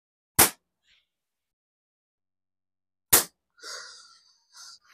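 A slingshot's flat rubber bands drawn and released empty, snapping sharply twice, the snaps nearly three seconds apart, followed by a brief softer rustle of handling.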